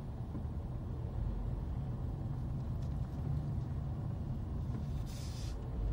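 Car driving along a street, heard from inside the cabin: a steady low rumble of engine and tyres, with a short hiss about five seconds in.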